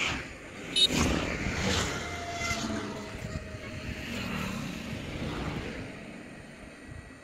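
A road vehicle passing close by and fading away, with a faint engine note that slowly drops in pitch. A short sharp sound comes about a second in.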